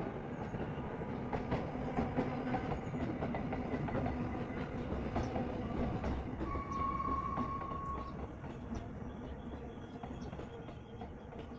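Sewing machine stitching: a steady low running rattle with many small clicks. A clear steady tone sounds for about a second and a half a little past halfway.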